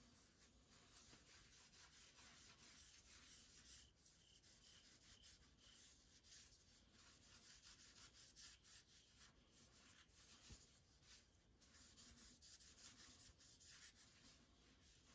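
Faint, repeated rubbing of a cloth along the steel blade of a Model 1893 Spanish bayonet, wiping WD-40 oil over the freshly de-rusted metal.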